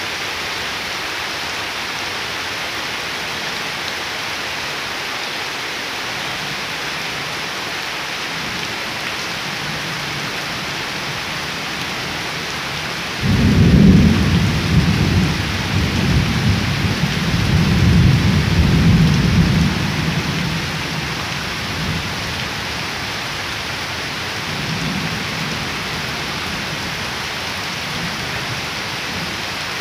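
Heavy rain falling steadily onto standing water and leaves. About a third of the way in, thunder breaks out suddenly and rumbles for around seven seconds, with a fainter rumble a few seconds later.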